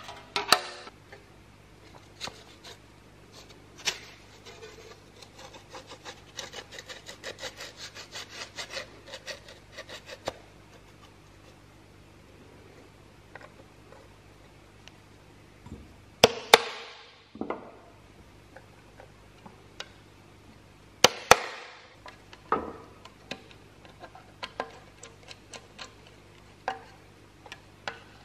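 Handsaw being reassembled: clicks and knocks as the wooden handle is fitted onto the steel blade and the saw screws are turned in with a screwdriver. A run of quick small ticks comes from about five to ten seconds in, and two sharp knocks that ring briefly come around sixteen and twenty-one seconds.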